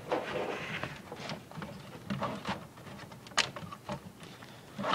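Handling noise: scattered light clicks and rustles of hands working on equipment, with one sharper click about three and a half seconds in.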